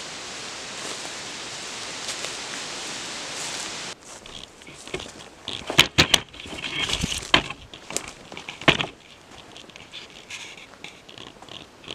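Steady rustling hiss of forest ambience. About four seconds in it gives way to footsteps through forest undergrowth and leaf litter, with sharp cracks of twigs and knocks, the loudest around the middle.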